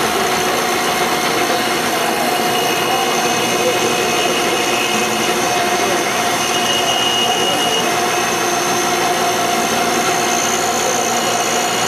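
Bench grinder running, with a piece of metal held against its grinding wheel: a steady, even grinding sound with a constant motor whine, a higher squeal coming and going as the pressure on the wheel changes.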